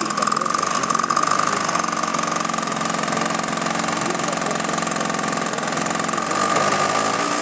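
Radio-controlled model aircraft engine running at a steady, fairly constant speed, with a high steady tone over it.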